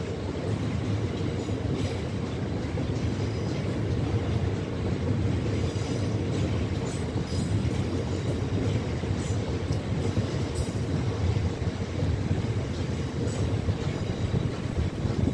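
A long freight train of loaded open box wagons rolling past: a steady low rumble of wagon wheels on the rails, with faint clicks now and then.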